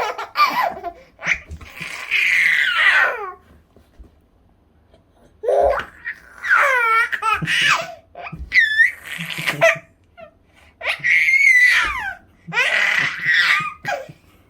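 A baby laughing in a run of high-pitched bursts, the pitch sliding down within each, with short pauses between them.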